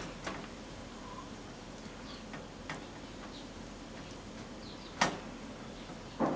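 Bone-in short rib pieces being tossed in flour by hand in a stainless steel bowl, knocking against the bowl in a few sharp clicks and taps. The loudest comes about five seconds in, with another just before the end.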